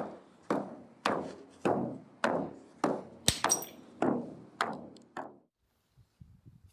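A steady series of about ten sharp percussive strikes, a little under two a second, each ringing briefly as it fades, with a sharper click and a high metallic ring about three seconds in. The strikes stop a little over five seconds in.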